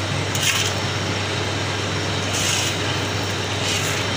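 Borewell drilling machine running steadily with a low, even hum, and a few short bursts of hiss over it.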